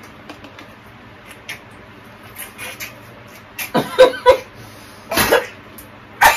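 People coughing and spluttering as they try to drink water from plastic bottles with cheek-retractor mouth guards holding their lips open. The sound comes in a few short loud bursts partway through, and loud laughter breaks out near the end.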